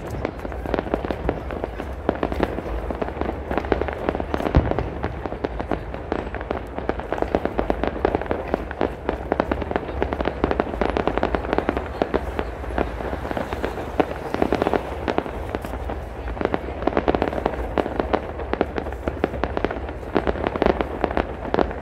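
A dense, continuous barrage of aerial fireworks: many bangs and crackles a second with no break, a few louder booms standing out among them.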